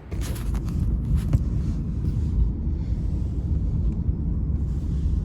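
A loud, steady low rumble with a few light knocks in the first second and a half; it starts and stops abruptly.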